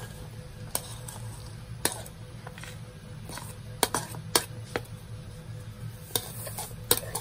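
A plate and spoon clicking and tapping against a glass bowl as chopped onion and spices are scraped off the plate into it: scattered light clinks, with a few close pairs a little after the middle.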